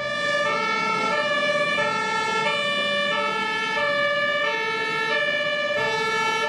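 Two-tone siren of an airport fire-rescue truck, alternating steadily between a high and a low note.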